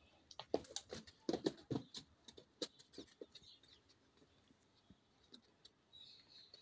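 A calf's hooves tapping and scraping irregularly on a hard stone floor as it walks, busiest in the first few seconds and then thinning to an occasional tap.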